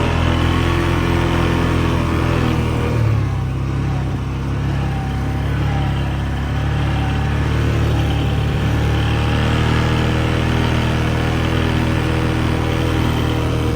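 Vehicle engine running steadily at low revs, with a slight change in engine note about three seconds in.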